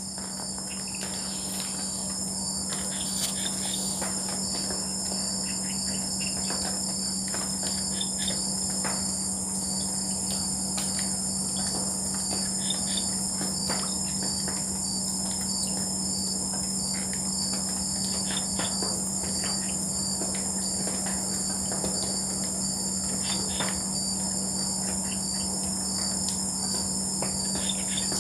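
Night chorus of crickets and other insects: a steady high-pitched trill with a regular pulsing chirp, over a low steady drone, with scattered short calls from frogs.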